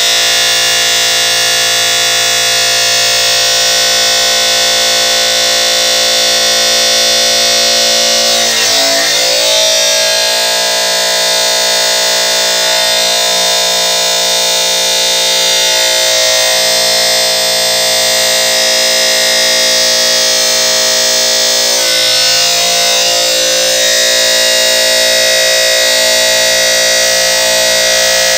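Cutting machine's motor and spindle running with a steady, high multi-tone whine, which wavers briefly about nine seconds in and again near twenty-two seconds.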